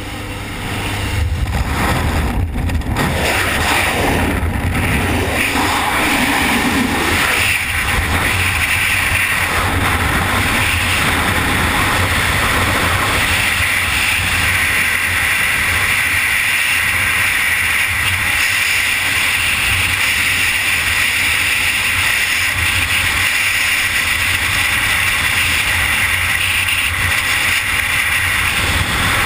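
Freefall wind rushing over a skydiver's helmet-mounted camera microphone, building over the first second or two after leaving the aircraft door, then holding steady.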